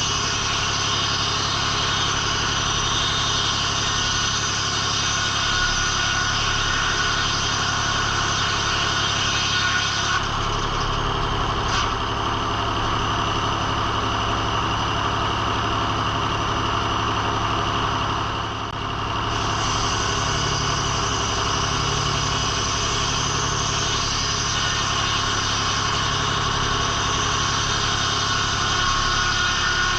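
Engine of a circle sawmill running steadily, with a brief dip in level about two-thirds of the way through.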